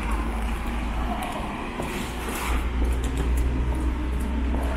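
Steady rumble of city road traffic from the street below, with an even hiss over it.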